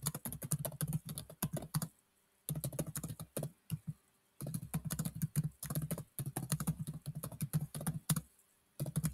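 Typing on a computer keyboard: quick runs of key clicks, broken by a few short pauses.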